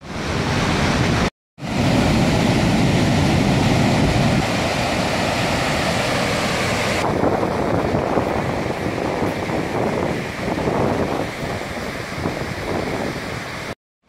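Steady rushing of a large waterfall running high with rainwater. The sound drops out briefly twice and is duller from about halfway on.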